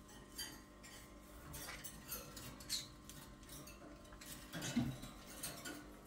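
Pyrrhura conures moving about a wire cage: scattered light clicks and metallic clinks of claws and beaks on the wire bars and hanging toys, with a louder knock a little before five seconds in.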